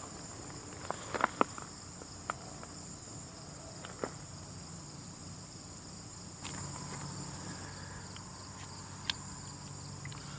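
Insects in an ant colony: a steady high-pitched insect hum with scattered tiny clicks and crackles, a small cluster about a second in and single ticks later.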